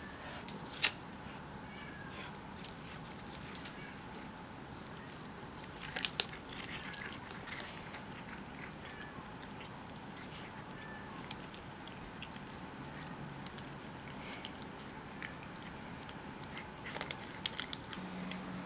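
A cat biting and chewing a treat taken from a hand, with a few sharp little clicks scattered through it.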